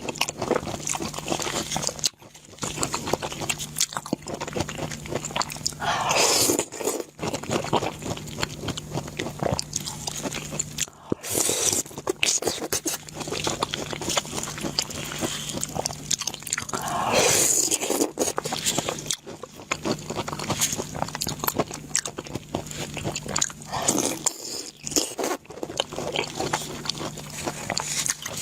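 Close-miked chewing and crunching of food in the mouth, a dense run of irregular crisp bites with a few louder, longer swells. A faint steady low hum sits underneath.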